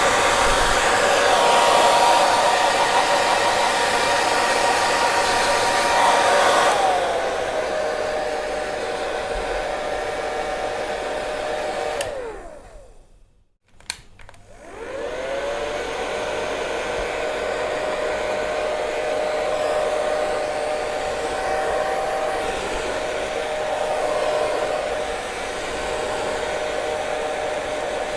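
Hair dryer blowing with a steady rush and motor whine. About a third of the way in the whine steps down in pitch and the level drops. Near the middle it shuts off, the whine sliding down into near silence, then after a click it spins back up and runs steadily again.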